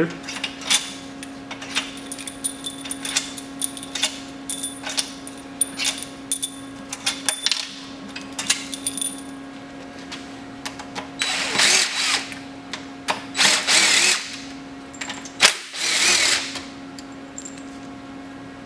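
Power tool running in short bursts, four times in the second half, as bolts are run out of a Nissan CD009 transmission housing. Before that come scattered metal clicks and taps of tools and parts being handled.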